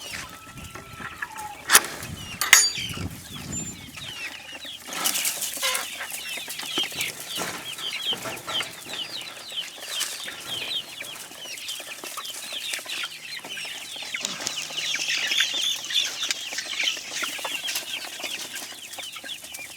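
A flock of chickens clucking and chattering, with many short, quick calls overlapping. Two sharp knocks come a couple of seconds in.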